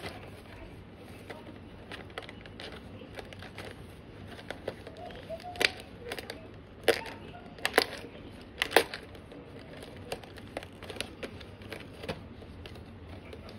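Cardboard snack box being handled and opened by hand: a run of small clicks and crinkles, with a few sharp snaps of the cardboard flaps between about five and nine seconds in.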